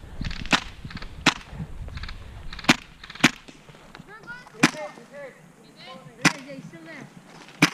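Airsoft rifles firing single shots: about seven sharp cracks, irregularly spaced a second or so apart.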